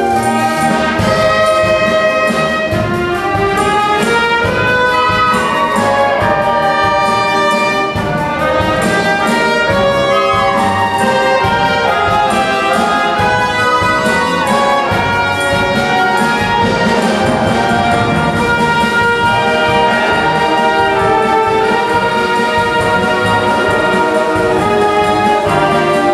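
Wind orchestra playing: flutes, clarinets, saxophones and brass sounding together in full, sustained chords, with no pause.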